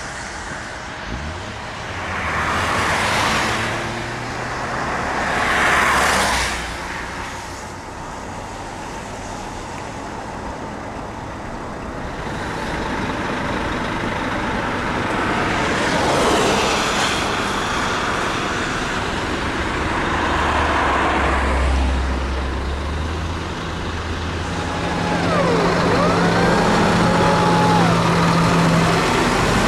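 Highway traffic passing one vehicle after another, each pass swelling and fading, with a heavy truck going by close near the end.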